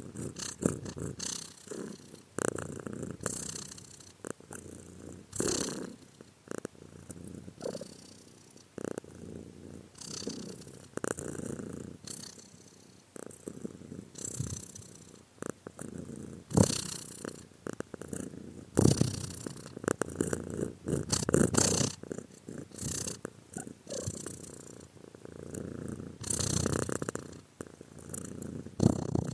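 Domestic cat purring, rising and falling in swells every second or two as it breathes in and out.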